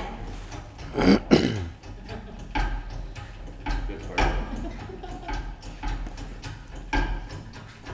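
A 20-ton hydraulic shop press being hand-pumped as it loads a small timber beam, giving separate sharp clicks roughly once a second. About a second in there is a short, loud sound that falls in pitch.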